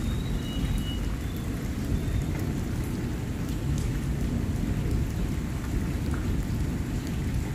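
Heavy rain in a thunderstorm: a steady low rumble runs under a hiss, with scattered drops pattering on hard surfaces.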